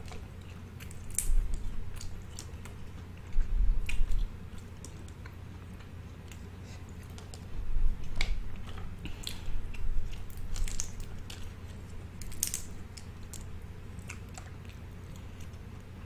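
A person chewing and biting food close to the microphone, in bouts of sharp clicks and crackles with low thumps about a second in, around four seconds, and again from about eight to eleven seconds.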